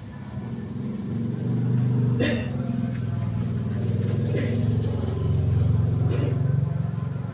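A sleeping baby snoring: a low rattling snore that swells and fades with its breaths, loudest about two seconds in and again around six seconds.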